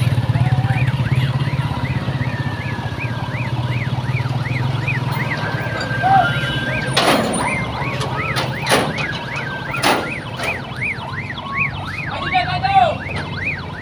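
An emergency vehicle's siren yelping, a fast rise and fall about three times a second, over the low running of a heavy truck's engine. A few sharp knocks come a little past the middle.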